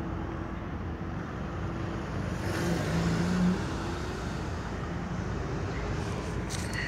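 Car engine and road noise heard from inside the cabin while driving: a steady low rumble, with a short louder hum about three seconds in.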